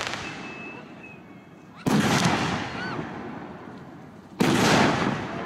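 Aerial firework shells bursting: two sharp bangs about two and a half seconds apart, each followed by a long rolling echo that fades away.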